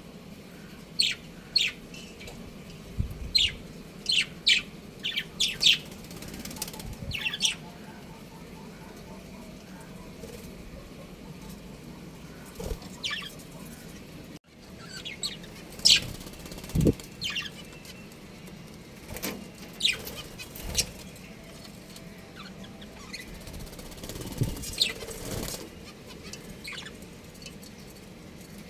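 Budgerigars chirping in short, scattered high calls, in a quick cluster in the first few seconds and again after the middle, with a few low thumps in between.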